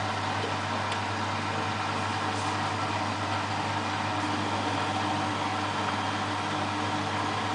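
Washing machine spinning its drum at steady high speed: an even motor hum with a constant whine and a hiss of rushing air over it, holding at one pitch without change.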